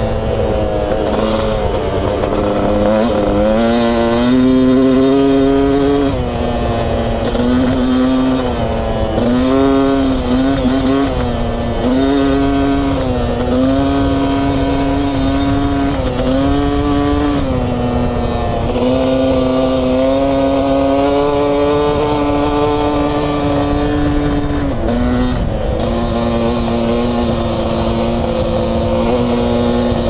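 Beta 300RR two-stroke enduro motorcycle engine revving under way, its pitch climbing and dropping again and again as the throttle opens and closes. Wind rush sits beneath it.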